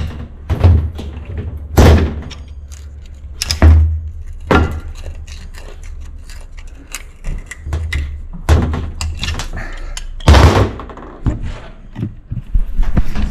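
Hammer blows driving a screwdriver into the hard carbon clogging the heat-crossover passage of an old cast-iron intake manifold: irregular heavy knocks and thuds a second or two apart, the loudest about ten seconds in.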